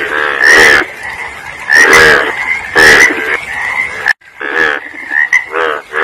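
Frog croaking over and over, about one croak a second, with a brief break a little past the middle.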